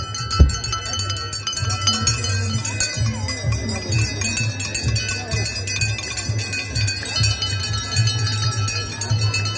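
Metallic jingling and chiming, bell-like, over a steady rhythmic low pulse from a street procession, with a sharp thump about half a second in.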